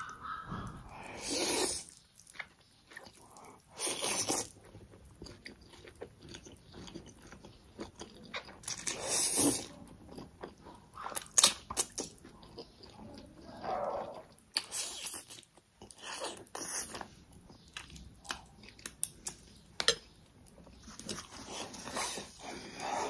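Close-up eating sounds: black bean noodles slurped up in several long sucks, with wet chewing and smacking in between. A few sharp clicks come about halfway through.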